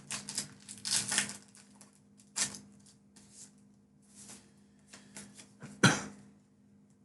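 Pokémon trading cards being handled and flipped through, a run of light clicks and flicks as the cards slide against one another, with a louder snap a little before the end.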